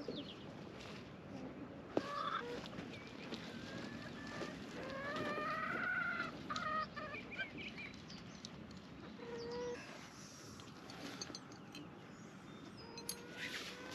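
Chickens clucking and calling at intervals. A sharp knock comes about two seconds in, and a few clicks near the end.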